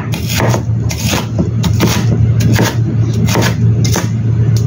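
Kitchen knife chopping an onion on a wooden cutting board, the blade knocking the board about two or three times a second, over a steady low hum.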